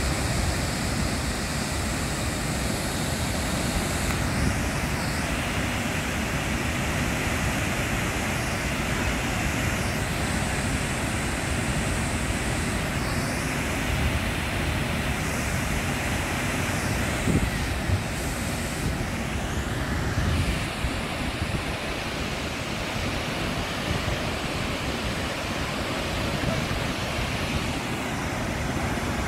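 Steady rush of water spilling over a concrete dam wall and falling down its face.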